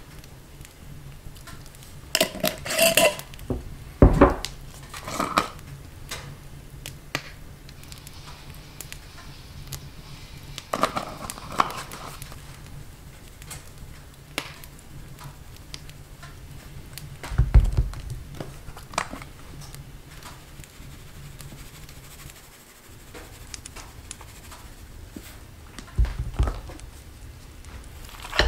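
Kitchen food-preparation sounds: scattered knocks and short bursts of clatter from dishes and utensils being handled, with some rustling, over a steady low hum that stops about three-quarters of the way through.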